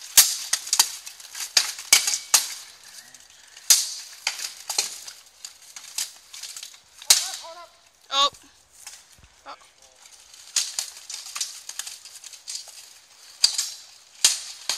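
Steel longswords and plate armour clashing in armoured sparring: a string of irregular, sharp metallic clanks and strikes. A brief shout cuts in about 7 and 8 seconds in.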